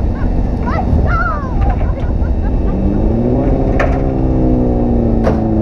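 Off-road race vehicle driving hard: a heavy, steady rumble, with an engine note that climbs about three seconds in and then eases. Two sharp knocks come near the end.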